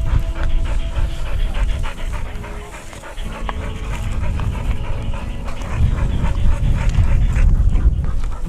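Hunting dog panting rapidly and steadily after working the field.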